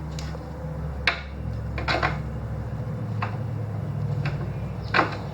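Scattered metallic clinks and knocks as the scooter's front wheel, axle and bushings are lined up in the fork, the loudest near the end, over a steady low hum.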